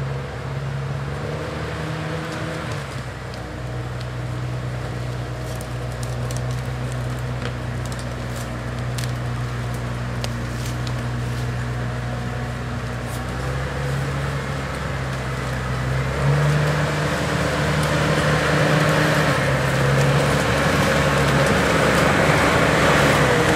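Forestry harvester's diesel engine running as the machine drives through deep mud on chain-tracked bogie wheels. The engine note shifts a few times and steps up about sixteen seconds in. Scattered light clicks come in the middle, and the engine and track noise grow louder toward the end as the machine nears.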